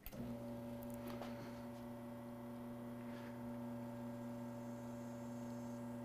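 Espresso machine pump running with a steady hum as a shot is pulled on an E61 group. It cuts in abruptly at the start, and the flow-control device is set nearly closed for a low-flow start to the extraction.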